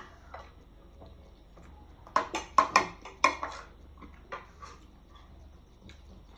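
Metal spoon clinking and scraping against a ceramic bowl while scooping rice, a quick run of several clinks about two seconds in and a couple of fainter ones after.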